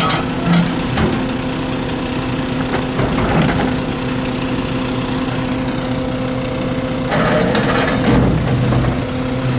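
Diesel engine of a WhiteGMC WXLL rear-load garbage truck running steadily at idle. About seven seconds in it grows somewhat louder, with a stronger low hum.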